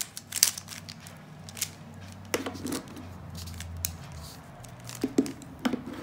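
Stickerless plastic 3x3 Rubik's cube being turned by hand through the F R U R' U' F' algorithm: about ten short, irregular plastic clicks and snaps as the layers are twisted.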